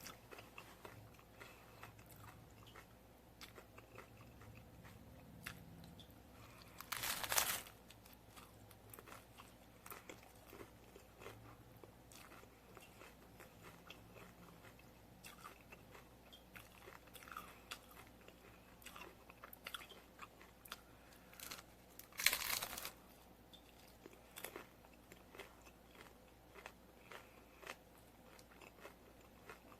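Close-up eating sounds: two loud crunching bites into hard taco shells, far apart, with quiet, crackly chewing in between.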